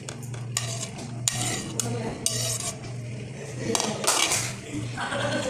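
A spoon scraping and clinking against a bowl as cut fruit is spooned in: a series of short, uneven scrapes and knocks, with a longer scrape about four seconds in, over a steady low hum.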